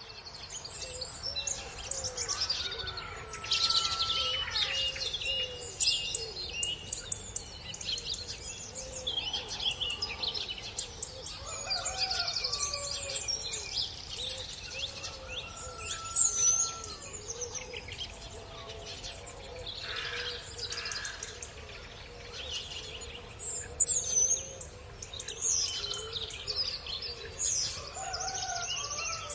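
Several songbirds singing and calling at once, a busy chorus of overlapping chirps, trills and short whistled notes.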